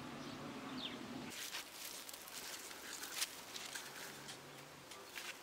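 Quiet outdoor ambience with a couple of faint bird chirps at the start, then scattered soft rustles and light clicks. A faint low hum comes and goes twice.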